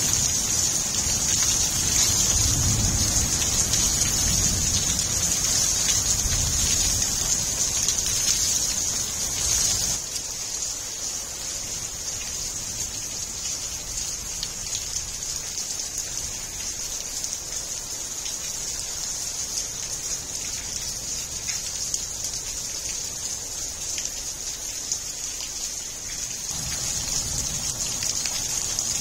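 Heavy monsoon rain falling steadily onto flooded ground and plants, a constant hiss. It is louder, with a low rumble underneath, for about the first ten seconds, then drops to a quieter steady hiss, and the low rumble returns near the end.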